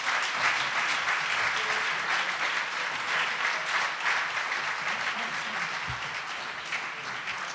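Audience applauding, slowly dying down near the end.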